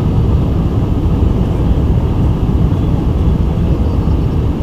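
Steady low rumble of cabin noise aboard a Boeing 747-400 in flight: airflow and its four Pratt & Whitney PW4056 engines heard from inside the cabin.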